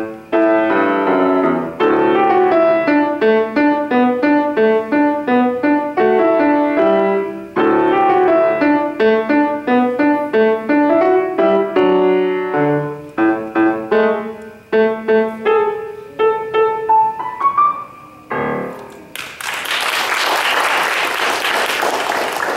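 Grand piano played by a child: a passage of quick separate notes and chords, closing with a rising run and a final note about eighteen seconds in. Audience applause follows to the end.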